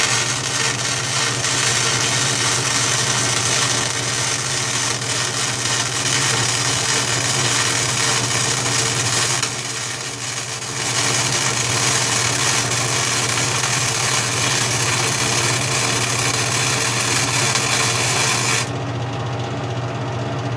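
Century FC90 flux-core wire-feed welder laying test beads at a low setting (4 on volts, 3 on wire feed speed): the arc crackles steadily, breaks off for about a second around nine and a half seconds in, then runs again until nearly two seconds before the end. A steady hum from the welder continues underneath throughout, and the arc is still burning nice and hot at this setting.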